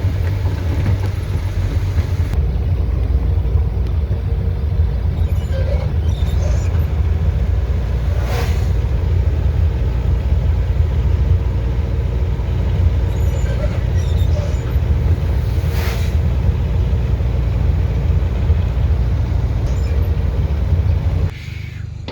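Truck engine running with a steady low rumble, with two short hisses partway through; the rumble drops away about a second before the end.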